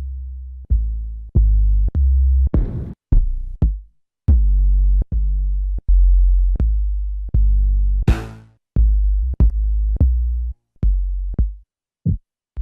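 Trap 808 bass samples played one after another: deep, sustained booms, each fading or cut off within about a second, one sliding down in pitch about four seconds in. A couple of sharp, noisy drum hits fall among them.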